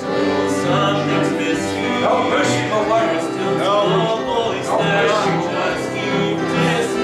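A man singing a gospel song, with other voices joining in, over a steady instrumental backing.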